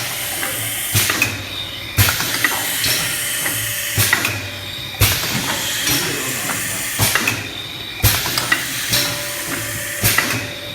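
Semi-automatic soft tube filling and sealing machine running: sharp mechanical clacks repeat about once a second over a steady hiss.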